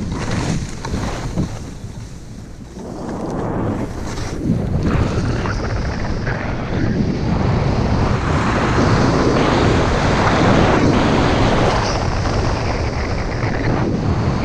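Wind rushing over the microphone and skis hissing and scraping over groomed snow during a fast run down a ski slope, growing louder about four seconds in as speed builds.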